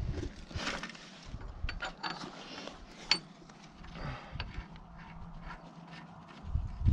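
Small metal clicks, ticks and rustling as bolts and fittings are handled at a backhoe's swing cylinder mount, with one sharp ringing clink about three seconds in.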